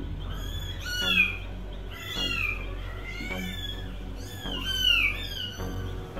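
A kitten meowing over and over: short high-pitched mews that fall in pitch, about one a second, the loudest about a second in and again near five seconds.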